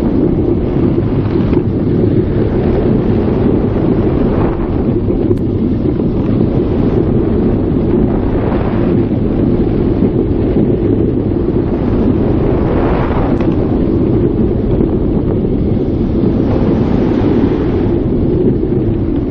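Heavy wind buffeting the microphone of a camera riding an Intamin sitting roller coaster at speed, a constant low rushing rumble over the running train, with gusts swelling up several times as the train goes through turns.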